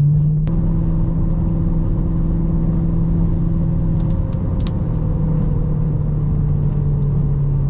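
BMW E92 M3's S65 V8 running at steady low revs while the car is driven, the engine still cold. There is a short click about half a second in, after which the engine note sits slightly higher.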